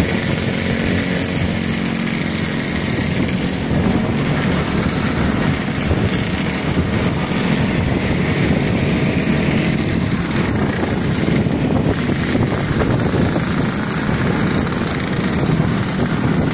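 Small motorcycle and scooter engines running steadily on the move, heard from a riding motorcycle among the group.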